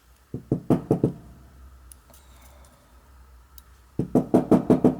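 Two runs of quick knocks, about six and then about eight a few seconds later, as a pin-tumbler lock cylinder is tapped to knock a stuck spool pin out of its chamber.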